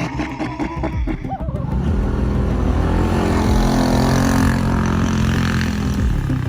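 A car engine running steadily, settling into an even hum about two seconds in after a stretch of mixed, unsettled noise.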